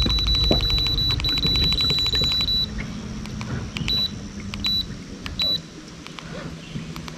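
An electronic beeper sounds a steady high tone for about two and a half seconds, broken once briefly, then gives three short beeps a little under a second apart. A fast run of clicks goes on under the long tone.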